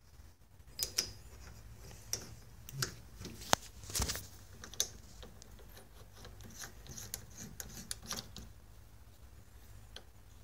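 Steel parts of a tool post base plate and its bolt clicking and scraping as they are handled and fitted onto a lathe's slide: scattered light clicks with a few sharper knocks in the first half, then fainter quick clicks.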